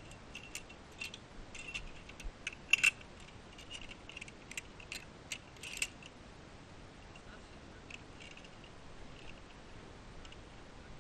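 Metal carabiners and a zipline trolley pulley clicking and clinking as they are clipped onto the steel cable: a quick run of sharp metallic clicks for the first six seconds, loudest about three seconds in, then only a few scattered clicks.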